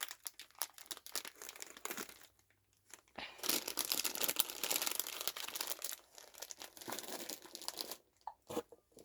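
Crinkling of snack packaging as it is handled and opened, in two spells with a short lull about two seconds in and a few separate clicks near the end.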